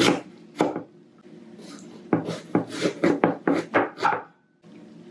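Kitchen knife chopping vegetables on a wooden cutting board: two single cuts, then a quick run of chops at about five a second from about two seconds in, stopping shortly after four seconds.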